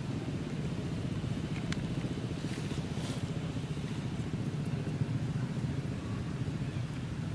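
Low, steady rumble of a running motor, with a faint click at just under two seconds and a short rustle at about three seconds.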